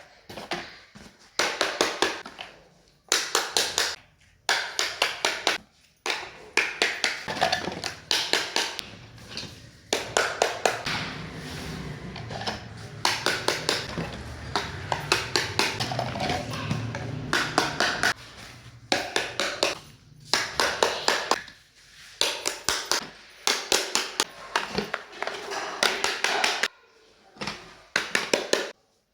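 Small plastic toy pieces being handled and set down, giving quick runs of clicks and taps.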